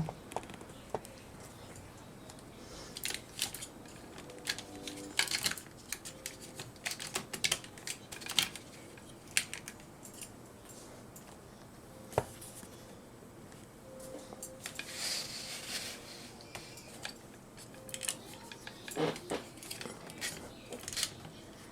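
Irregular clicks, taps and light scrapes of a Bandai DX Chogokin VF-1J die-cast and plastic toy being handled, its joints and parts clicking as it is moved and posed into Gerwalk mode.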